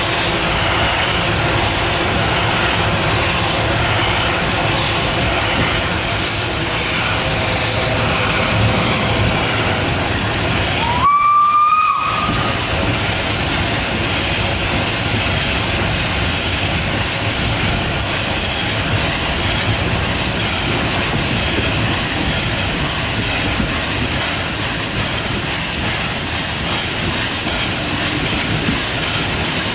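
Steady hiss and rumble of a narrow-gauge steam train, with one short rising blast of the locomotive's steam whistle about eleven seconds in.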